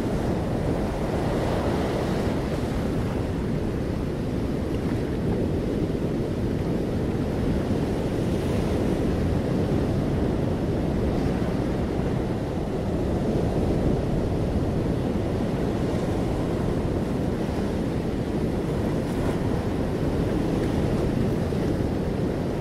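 A steady, even rushing noise, heaviest in the low range, like surf or wind, with no distinct events.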